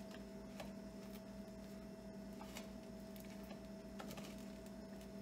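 Steady low electrical hum, with a few faint light clicks and taps from bowls and utensils being handled.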